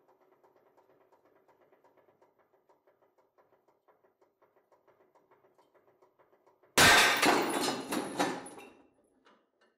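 A titanium bolt pulled in tension by a hydraulic press snaps with a sudden loud bang about seven seconds in, followed by about two seconds of clattering steel parts; it fails at about 4,300 kg of pull. Before the break the press runs faintly with a soft pulsing, about four pulses a second.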